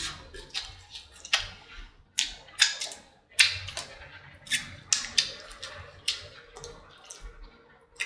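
Close-miked mouth sounds of eating: wet lip smacks and chewing clicks, irregular, about two a second.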